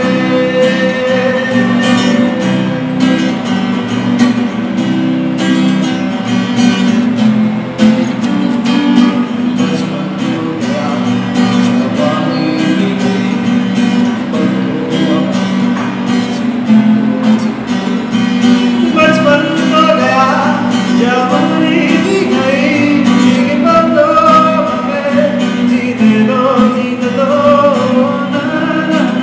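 A man singing a Bengali song while strumming a cutaway acoustic guitar in a steady rhythm.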